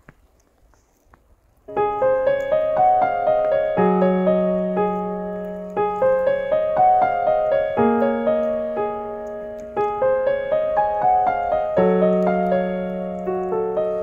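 Calm piano music that comes in about two seconds in after a near-quiet moment. It plays a slow repeating figure of struck notes over long held bass notes that change about every two seconds.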